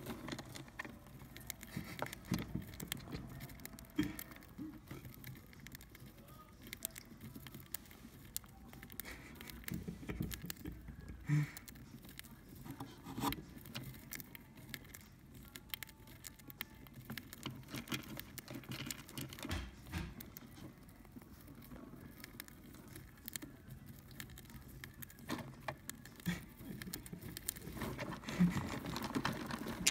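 Budgerigars pecking and cracking millet seed among wood shavings: scattered small irregular clicks and light rustling.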